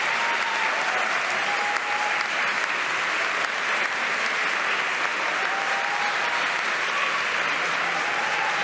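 Large crowd applauding steadily, a dense unbroken patter of clapping.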